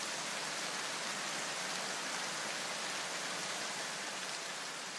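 A steady, even hiss of noise like rain, with no music, slowly fading near the end.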